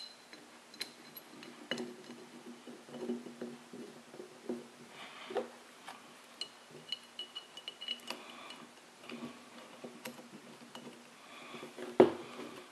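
Bolts being fitted by hand into an oil pump body: faint scattered metallic clicks and light scraping, with a brief metallic ring in the middle and a louder knock near the end.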